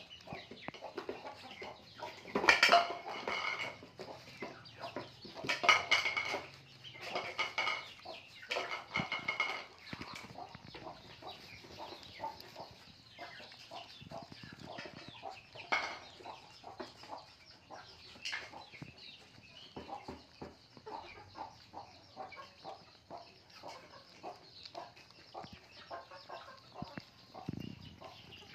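Two puppies eating rice and fish from foam trays: a long run of small, quick chewing and smacking clicks. In the first third, several louder calls with a clear pitch sound over the eating.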